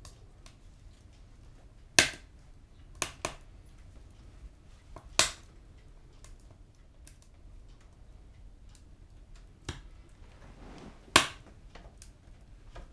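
About half a dozen sharp, separate clicks at uneven gaps, including a close pair, with fainter ticks between them. The loudest clicks come about two seconds in and near the end.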